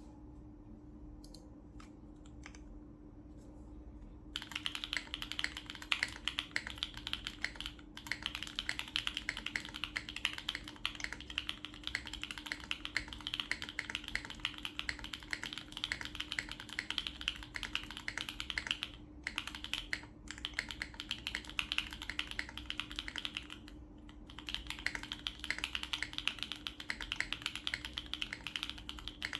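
Custom mechanical keyboard with Gateron Summertime switches in an acrylic Tofu60 Redux case, carbon fibre plate and O-ring mount, typed on fast and continuously from about four seconds in after a few single key presses, with a few brief pauses. A steady low hum runs underneath.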